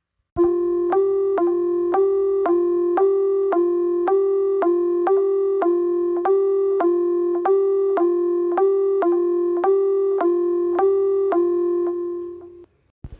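Synthesized alarm tone: one organ-like note re-sounded about twice a second, evenly and unchanging, fading out and stopping shortly before the end.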